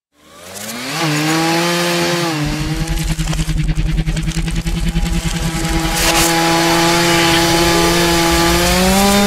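Chainsaw motor running and its chain cutting through a plastic alarm clock, played in reverse. The steady hum fades in at the start, a fast rattle of the chain through the clock runs through the middle, and near the end the pitch drops away towards a sudden stop.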